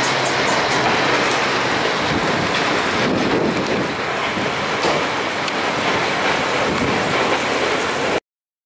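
Tornado passing close by: a dense, steady rush of wind and rain that cuts off suddenly near the end.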